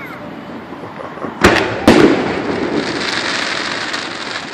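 Aerial fireworks shells exploding: two sharp bangs about half a second apart, followed by a lingering hiss as the burst burns out.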